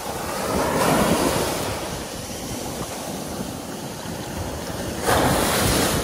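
Ocean surf breaking on a sandy beach at the water's edge, foam hissing and washing up the sand. One wave swells and breaks about a second in, and a louder wave crashes suddenly about five seconds in.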